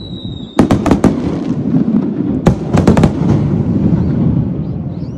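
Aerial fireworks display: a descending whistle ends about half a second in, followed by a quick cluster of sharp shell bursts. A second cluster of bursts comes about two and a half seconds in, and a low rumble fades after each.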